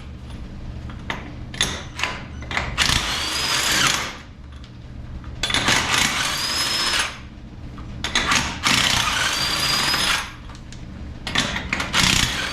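Handheld power drill run in repeated bursts: three runs of about a second and a half, each with a rising whine, and several short blips between them.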